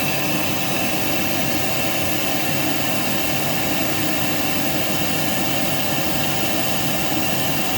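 Vacuum cleaner motor running steadily, a loud rushing noise with a steady high whine over it.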